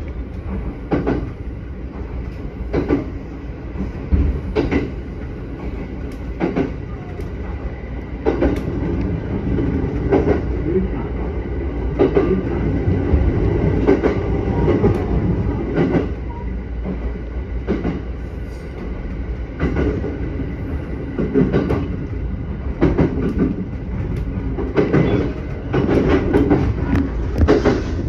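Train running along the line, heard from inside the leading car: a steady rumble of wheels on rails, with the clickety-clack of wheels passing over rail joints about every two seconds.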